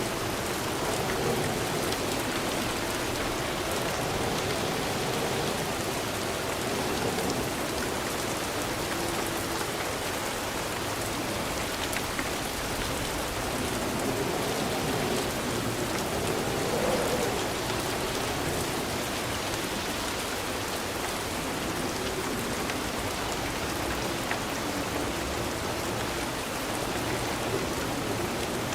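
Steady rain falling and pattering on surfaces, an even hiss that holds at the same strength throughout.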